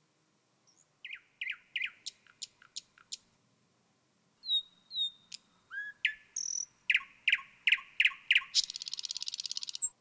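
A songbird singing: a run of quick downward-swept chirps, a pause, a couple of clear whistled notes, more chirps, then a fast high trill near the end that stops abruptly.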